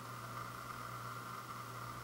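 Steady background hiss with a low hum and a faint steady higher tone: room tone or recording noise, with no handling sounds from the record.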